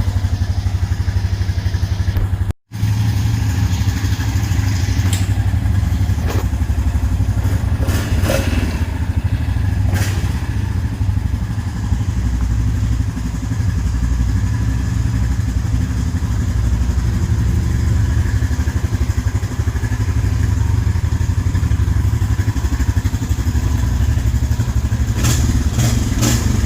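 Honda ATV engine running steadily, with a low even beat and a few clattering knocks; the sound drops out for an instant about two and a half seconds in.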